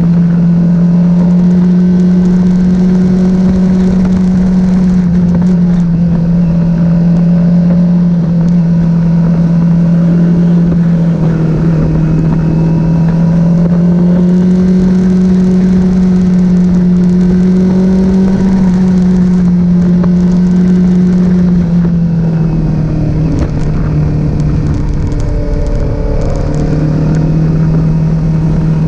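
Kawasaki Z400 parallel-twin motorcycle engine and exhaust running continuously at a steady pitch. The pitch drifts up slightly around the middle, sags about 22 seconds in, and picks back up near the end.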